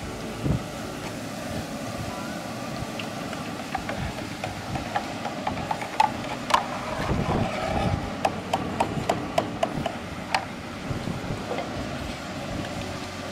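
Deep oil in a large iron kadai sizzling and bubbling hard as gram-flour batter drips through a perforated ladle into it, frying boondi. Sharp clicks and pops come thick and fast through the middle.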